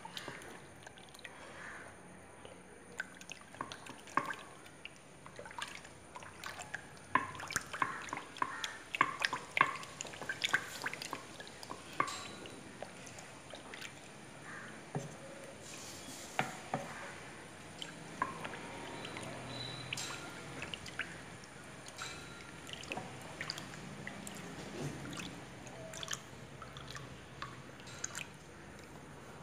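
A spoon stirring and scooping a thin slurry of palm flour and water in a cloth-lined pot: soft sloshing and dripping with irregular small clicks and taps, busiest about seven to twelve seconds in. Near the end, liquid is ladled and poured back into the pot.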